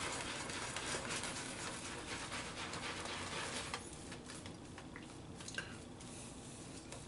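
Shaving brush working lather over a stubbled face, a soft scratchy brushing. It is louder for the first few seconds and quieter from about halfway, with one small click near the end.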